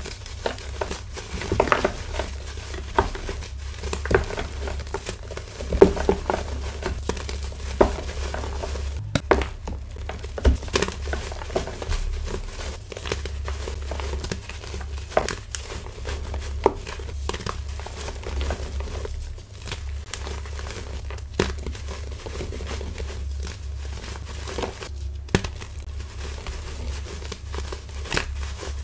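Reformed gym chalk blocks crushed and squeezed by hand in a tray of loose chalk powder: continuous dry crunching and crumbling, with frequent sharp cracks as chunks break apart. A steady low hum runs underneath.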